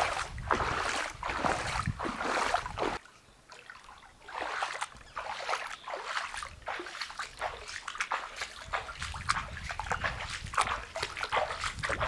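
Footsteps wading through shallow floodwater, splashing and sloshing with each step, with a short lull about three seconds in.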